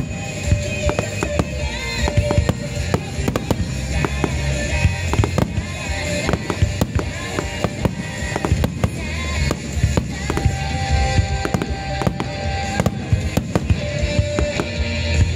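Rapid barrage of aerial firework shells bursting in quick succession, with many sharp cracks and bangs several times a second, over music played to accompany the display.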